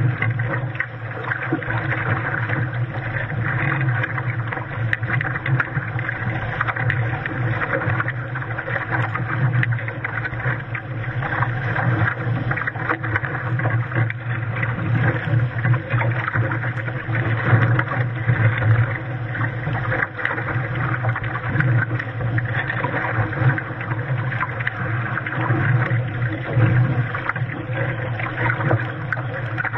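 Steady rushing and splashing of water against a Hobie Cat catamaran's hull as it sails, with wind on the microphone.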